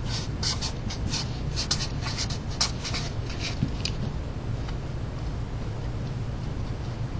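Black felt-tip marker writing on paper: a quick run of short scratchy strokes that stops about three and a half seconds in. A steady low hum runs underneath.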